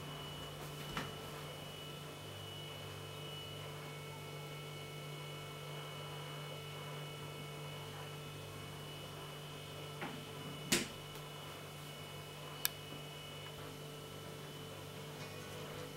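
Refrigerator's steady electrical hum, with a few short clicks and two sharper knocks about eleven and thirteen seconds in.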